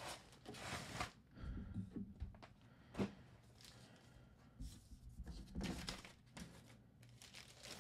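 Faint rustling and crinkling of plastic air-column bubble wrap and a clear plastic bag as a graded comic slab is slid out of them, with one sharp tap about three seconds in.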